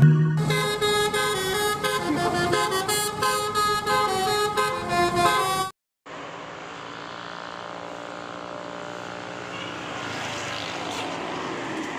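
A telolet basuri bus horn playing a quick tune of stepped multi-tone notes, cut off suddenly a little over five seconds in. After a brief gap a bus engine runs steadily, gradually getting louder as it comes up the climb.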